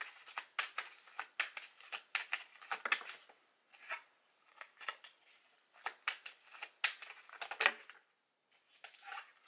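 Tarot deck shuffled by hand: a rapid run of short card clicks and flicks, thinning out about three seconds in and stopping briefly near the end.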